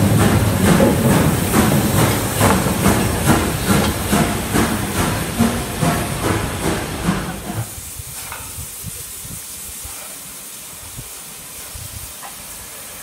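A steam train on the move, with regular exhaust beats about two to three a second for the first seven seconds or so. It then gives way to a quieter, steady hiss of steam from a standing LNER B1 4-6-0 locomotive, No. 1264.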